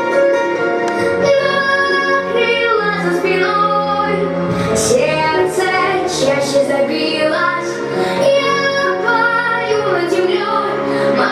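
A girl or woman singing a song with instrumental accompaniment, holding long notes.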